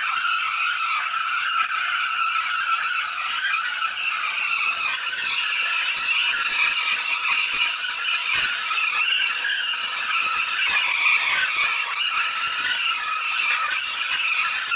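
ZVS-driven Tesla coil with a Leyden-jar capacitor bank firing steadily, its arcs giving off a loud, unbroken high-pitched hiss and buzz.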